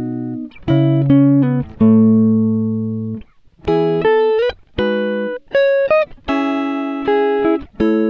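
Background music: a melody of plucked notes and chords, each struck sharply and left to ring out before the next.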